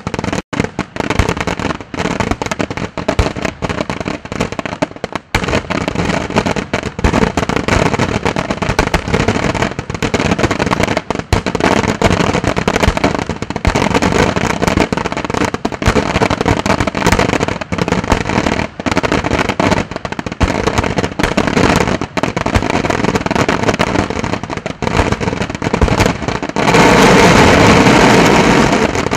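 La Tirrena Fireworks' aerial display shells bursting in rapid, overlapping succession, a continuous run of bangs. About 27 seconds in it swells into a louder, unbroken barrage.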